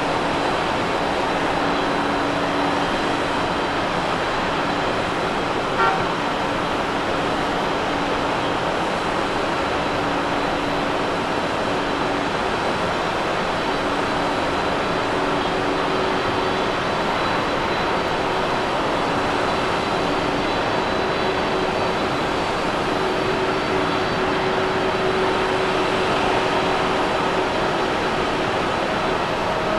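Twin-engine Boeing 777 jet engines at taxi power: a steady rush of noise with a faint high whine. There is one short click about six seconds in.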